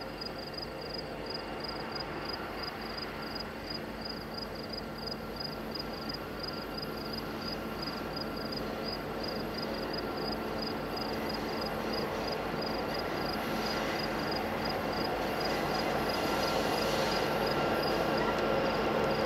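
Loaded coal train approaching behind EMD SD70-series diesel-electric locomotives: a steady engine rumble that grows louder as it nears.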